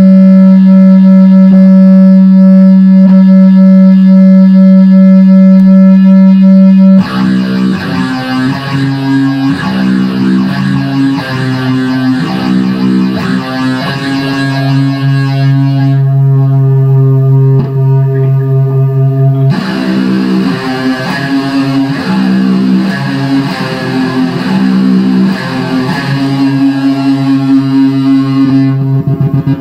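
Epiphone SG Special electric guitar played loud through a Line 6 Spider III amp: one note held for about seven seconds, then a busy improvised riff of changing notes.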